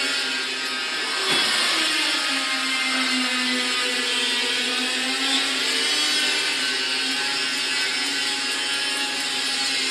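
Double-wire fully automatic chain link fence machine running: a steady motor-and-drive whine with mechanical clatter. The whine drops in pitch about a second in, then holds steady.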